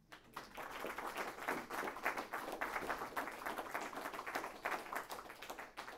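Audience applauding with many hands clapping at the end of a talk. The clapping starts right away, is loudest in the first few seconds and dies away near the end.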